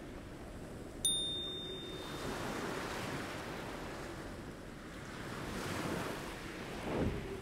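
Ocean surf washing and breaking in slow swells, with a faint steady low hum beneath. About a second in, a single bright bell-like ding rings out and fades.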